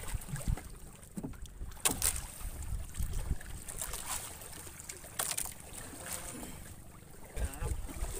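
Wind buffeting the microphone aboard a small boat at sea, an uneven low rumble, with a few sharp knocks and clicks from gear being handled, the clearest about two seconds in and again about five seconds in.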